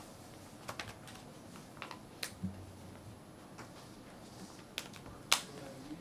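A handful of sharp clicks at irregular intervals, the loudest near the end, typical of computer keys or a mouse being pressed to page through a projected document, over faint room hiss.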